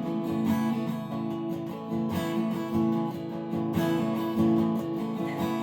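Acoustic guitar with a partial capo on the second fret, strummed through a G–A minor–C–D chord progression.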